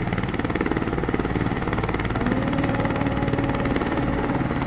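Helicopter running, its rotor beating rapidly and evenly, with a steady hum joining about halfway through.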